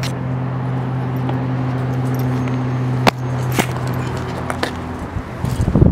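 A motor vehicle engine running steadily with a low, even hum that shifts about three seconds in. A few sharp clicks and a quick run of knocks near the end.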